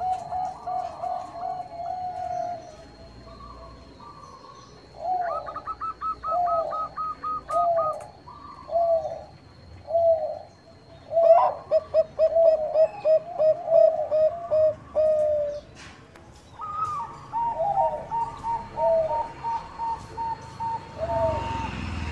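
Bangkok perkutut (zebra doves) calling, their rolling coos coming in quick runs of short repeated notes. At times a second, higher-pitched bird calls over the first.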